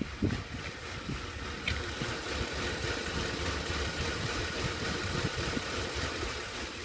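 Ford F-150's 5.4-litre V8 idling rough, with an uneven, pulsing rumble. The rough idle is caused by a canister purge valve that is not working properly.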